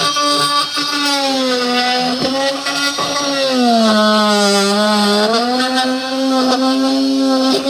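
Small handheld electric cutting tool running with a steady high whine. About three and a half seconds in, its pitch sags as the tool is loaded in the cut, then it comes back up to speed.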